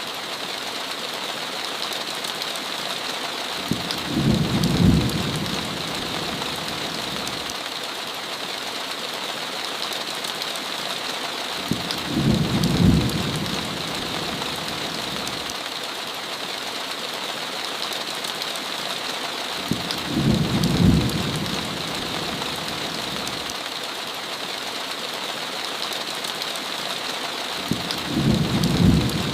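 Steady heavy rain pattering on a window, with four short low rumbles of thunder that recur about every eight seconds.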